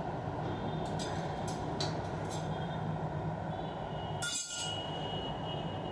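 A few light clinks of a utensil against a plate as a piece of ginger barfi is taken up, the sharpest about four seconds in with a brief ring, over a steady low hum.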